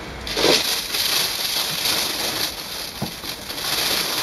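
A plastic bag wrapped around a printer rustles and crinkles as it is gripped and pulled up by its plastic handles. A couple of soft knocks come through it.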